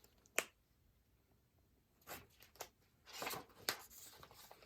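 Faint page turn of a picture book: a sharp click about half a second in, then brief paper rustles in the second half.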